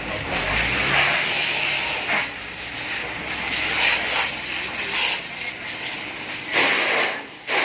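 Water spraying from a fire hose: a loud hiss that surges and falls away several times.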